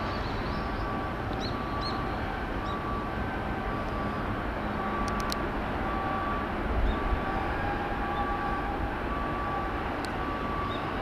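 Steady low rumble of shipyard and harbour machinery, with an electronic beeper sounding in short repeated tones a little more than once a second.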